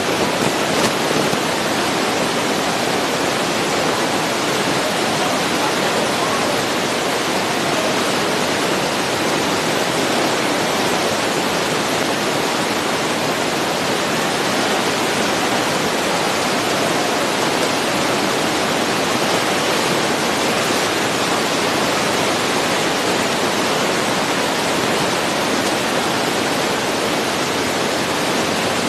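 Steady, even hiss at a constant level, with no distinct events or voices in it.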